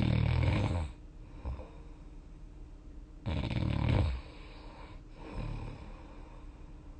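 A person snoring in deep sleep. Two loud snores come about three seconds apart, each lasting about a second, and each is followed by a shorter, softer snore.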